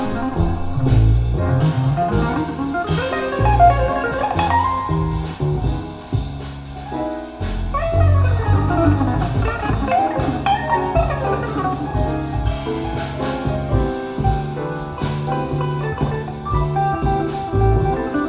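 Instrumental jazz-blues music with guitar, a walking bass line and a drum kit, played back through a hi-fi system.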